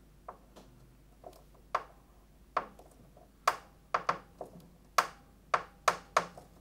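A dozen or so sharp, irregularly spaced clicks, some ringing briefly, as a tool turns the height-adjustment screw on a bracket of a Kioshi piano sensor rail under the keys, lowering the rail to cure erratic key response.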